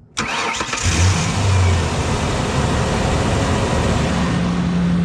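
Ford Ranger engine starting: it fires up suddenly, revs for a moment about a second in, then settles into a steady idle. The truck has an intermittent no-start that the mechanic suspects may be a failing fuel pump; here it starts after the fuel tank has been struck with a hammer.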